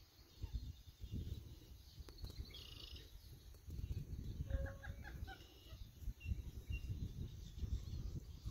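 Wind gusting on the microphone, with a bird calling a quick run of short notes about halfway through and a few fainter, higher bird notes around it.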